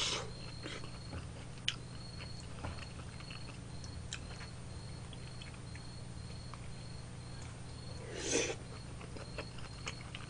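A person chewing food with the mouth close to the microphone: soft wet chewing and scattered small clicks, with one louder breathy noise about eight seconds in.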